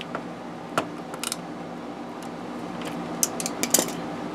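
A few sharp metallic clicks and taps from a socket wrench and small loose parts as the steering damper mount bolts are worked loose, over a steady hum.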